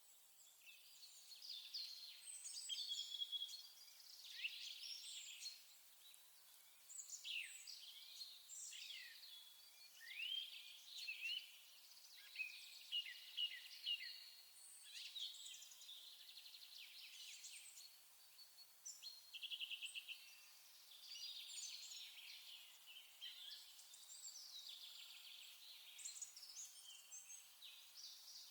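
Birds singing and chirping in a busy mix of short whistled phrases and rapid trills, rising and falling in bouts.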